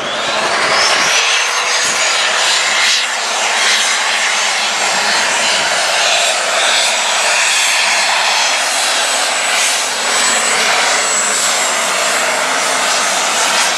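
Light super stock pulling tractor's turbocharged diesel engine running flat out under load while dragging the weight-transfer sled. A high turbocharger whistle climbs over the first second and then holds, over a steady, loud engine din.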